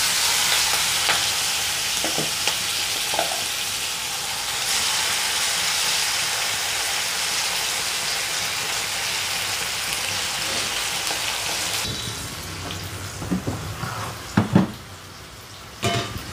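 Masala-coated prawns sizzling loudly in hot oil in a frying pan, just added and stirred with a wooden spatula. About twelve seconds in the sizzle drops to a quieter hiss, and a few knocks follow near the end.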